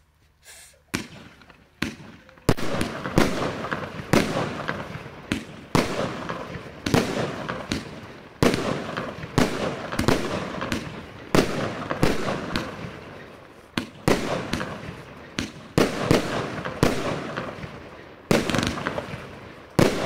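Alpha Fireworks 'Ultra', a 20-shot 25 mm consumer firework cake, firing: after about a second of quiet, a rapid run of sharp bangs comes about one to two a second, each trailing off in a noisy fade.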